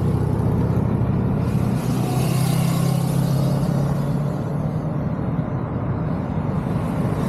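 A continuous stream of motorcycles riding past, their engines running as a steady drone that swells as a closer group goes by about two seconds in.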